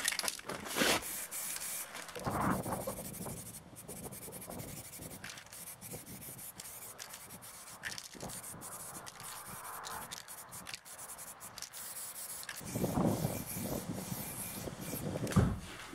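Aerosol spray paint can hissing in many short bursts. Two spells of lower-pitched handling noise come through, and there is a sharp thump near the end.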